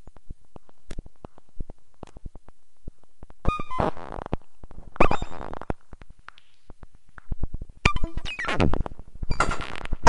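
Modular synthesizer patch: a stream of sharp clicks broken by short bursts of buzzing electronic tone, with several falling pitch sweeps. It grows denser and louder near the end.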